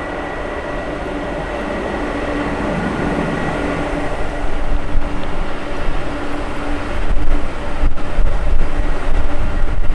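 Jet airliner engines running: a steady whine over a broad rumble that grows louder, turning uneven and gusty over the last few seconds.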